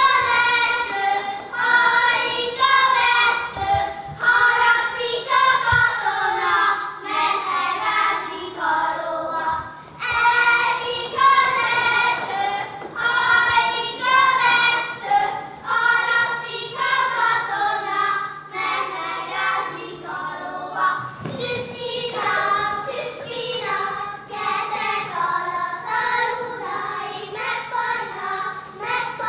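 A group of children singing a Hungarian folk song together.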